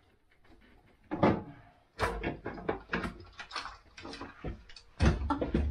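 Knocks, bumps and scrapes of someone climbing up through an attic access opening. After a near-quiet start there is a single knock, then a quick run of knocks and clicks, and a heavy thump near the end.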